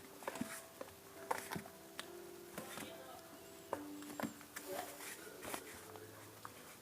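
Slime being squeezed and played with by hand: irregular sticky clicks and pops, several a second.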